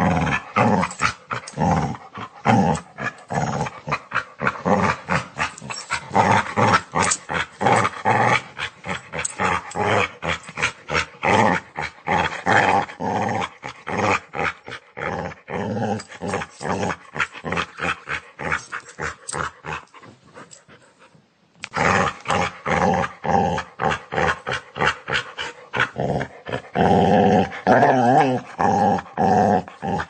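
Dog snarling and growling aggressively in quick rhythmic pulses. The snarls fade out about twenty seconds in, stop briefly, then start again, turning into more drawn-out, pitched, wavering growls near the end.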